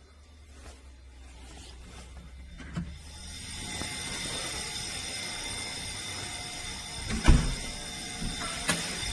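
Building fire alarm ringing steadily, swelling up over the first few seconds. It is a false alarm, which the resident suspects was set off by someone smoking or lighting a fire upstairs. Three thumps cut in, the loudest about seven seconds in.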